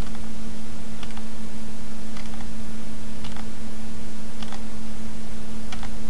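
Six single sharp clicks at a computer, a little over a second apart, over a steady low electrical hum and hiss.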